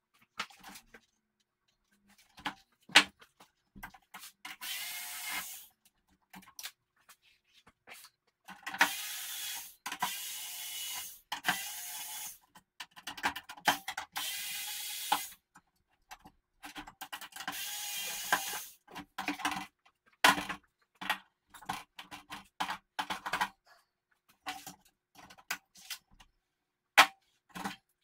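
Cordless electric screwdriver whirring in about six short runs of one to two seconds as screws are driven out of the TV's sheet-metal back panel. Sharp clicks and knocks of screws and metal parts being handled fall between and after the runs.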